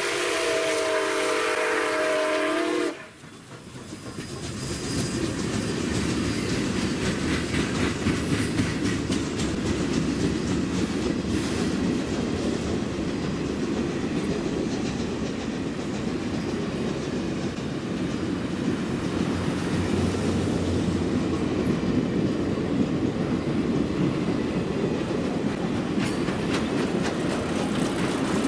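A steam locomotive's chime whistle holds one long blast that ends abruptly about three seconds in. After a brief dip, the passenger train is heard rolling past: a steady rumble and clatter of wheels on the rails.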